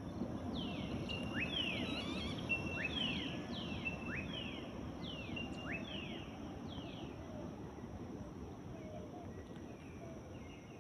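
Birds calling in a mangrove estuary: a rapid series of short, sharp descending calls repeated through the first several seconds, then fading away, over a low steady background hum.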